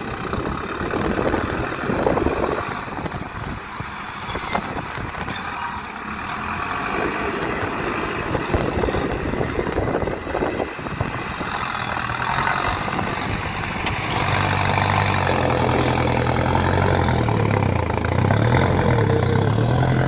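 Mahindra 605 DI tractor's diesel engine running hard while working a front loader on sand, its revs rising and falling with the loader's moves. A few seconds past the middle it settles into a louder, steadier note.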